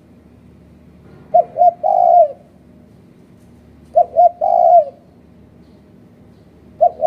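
Spotted dove (terkukur) cooing. It repeats a three-note phrase of two short coos and then a longer, drawn-out coo about every two and a half seconds: twice in full, with a third phrase starting near the end.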